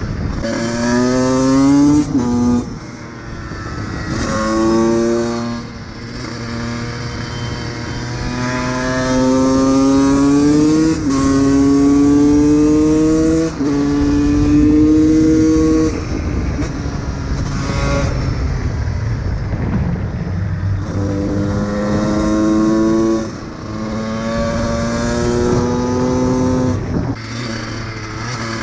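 Honda CR125's 125 cc single-cylinder two-stroke engine accelerating hard through the gears: the pitch climbs in each gear and drops at each shift. This happens over several pulls, with brief easings off the throttle between them.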